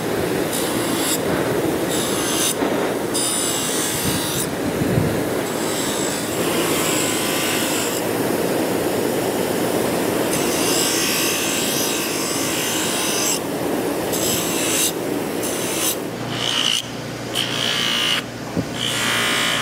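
Bench grinder running with a rusty steel knife blade pressed against its spinning wheel: a steady grinding, scraping noise, broken by several brief gaps.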